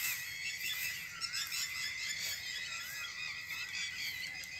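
Night-time field chorus of calling animals, most likely frogs and insects: a steady high trill throughout, with short warbling calls repeating about once a second.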